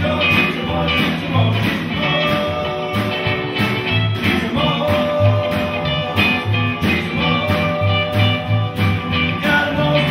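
A live band of upright double bass, drum kit and hollow-body electric guitar playing a song with a steady beat.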